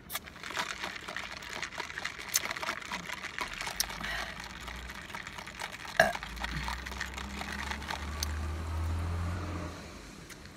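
Slurping a drink through a plastic straw from a paper cup: wet sucking and gurgling with many small clicks, and one sharper, louder sound about six seconds in.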